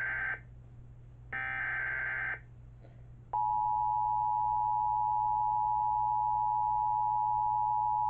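An EAS encoder/decoder sending its alert: first the end of one burst of buzzy digital SAME header data, then a full one-second burst about a second and a half in. From about three seconds in comes the loud, steady two-tone EAS attention signal, which marks the start of an emergency alert.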